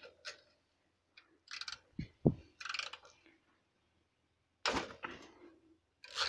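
Hand tools clinking and knocking on metal as a socket on an extension and a ratchet handle are fitted onto an engine bolt. There are a few light clicks, a dull thunk about two seconds in, and a short clatter near five seconds.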